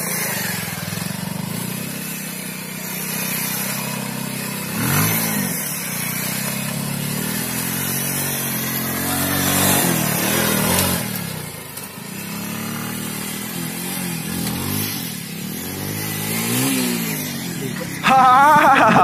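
Bajaj Pulsar single-cylinder motorcycle engine running and revving repeatedly, its pitch rising and falling several times. In the last second a sudden loud, wavering voice cuts in over it.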